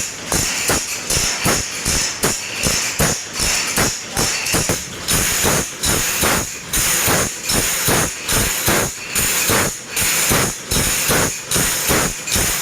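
A hand file rasping across the teeth of a gergaji selendang saw in steady, even strokes, about two a second, as the teeth are sharpened.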